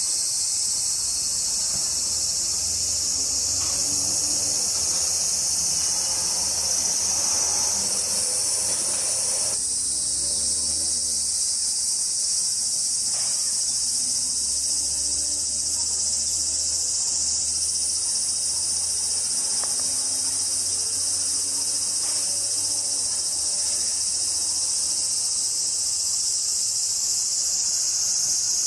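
Steady, high-pitched insect chorus: an unbroken shrill drone that does not let up, with a faint low hum beneath it.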